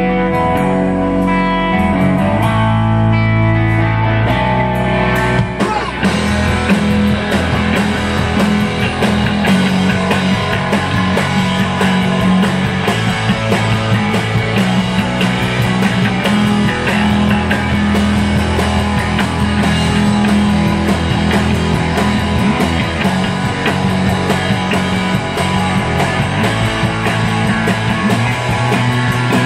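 Live rock band playing loud: electric guitars ring out clear sustained notes, then the bass and drums come in hard about six seconds in and the full band plays on.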